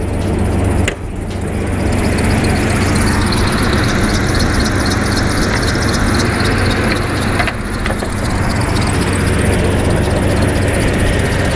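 Oldsmobile Bravada's 4.3-litre V6 idling steadily with the hood open, a cold engine that the owner says has a misfire, with air rush from the engine fan. A short knock about a second in as the hood is lifted.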